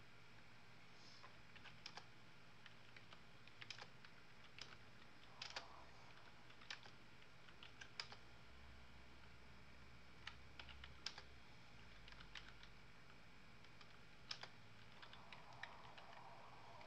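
Faint, irregular clicks of a computer keyboard being typed on, roughly one a second with short pauses, over a low room hum.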